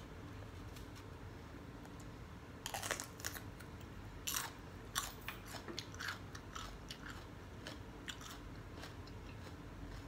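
Close-up biting and chewing of a raw sweet mini bell pepper. After a quiet couple of seconds come a few loud crisp crunches, then smaller irregular crunches as the chewing goes on.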